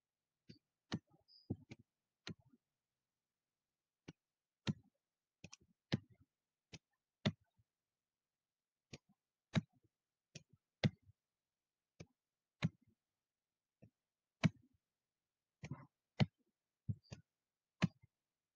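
Irregular short, sharp clicks, roughly one a second, made while highlighting text on a computer, with silence between them.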